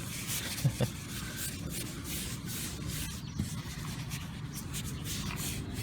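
Heavy-duty wet cleaning wipe rubbing and scrubbing over a car's dirty painted surface, a continuous scratchy friction sound as grime and dried bird droppings are wiped off.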